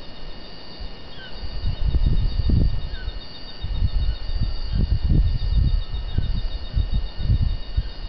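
Wind buffeting the microphone in irregular gusts, the loudest sound, over a steady chorus of rainforest insects trilling high and a few short bird chirps.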